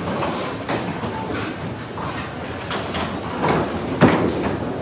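Candlepin bowling alley: a ball rolling with a rumble down a wooden lane, with a sharp knock about four seconds in.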